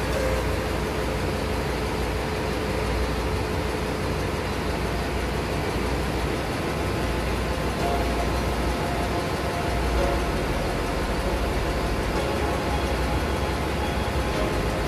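Steady drone of a ship's engine room: running diesel machinery making a constant, even noise that is heaviest in the low end, with a faint steady hum.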